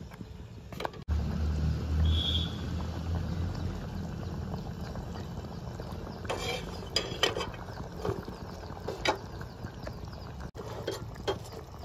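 Okra curry (bhindi masala gravy) boiling in a pan on a gas stove, bubbling with scattered pops that cluster a little past halfway, over a steady low rumble.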